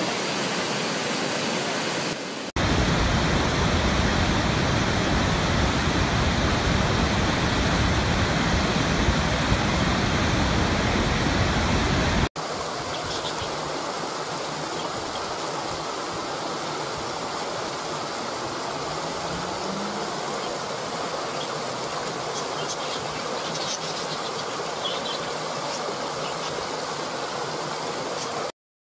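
Rushing water, a steady noise that changes abruptly at two cuts. From about two seconds in to about twelve seconds it is a heavier, deeper, louder rush. After that it is a lighter, hissier flow until it cuts to silence near the end.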